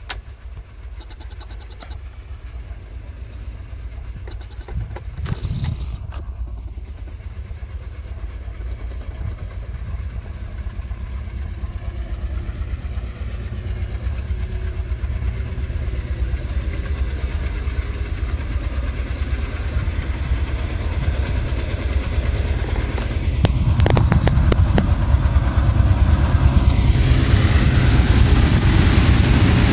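Twin ALCo WDG-3A diesel locomotives with their 16-cylinder ALCo 251 engines working hard under a heavy coal load: a deep, steady engine rumble that grows slowly louder as they approach. About 23 seconds in the rumble jumps louder, and wheel-on-rail noise builds toward the end.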